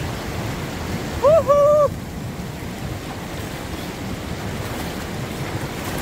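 Fast-flowing river water rushing steadily, with splashing from a person swimming in it and wind on the microphone. About a second in, a person's voice makes one short call.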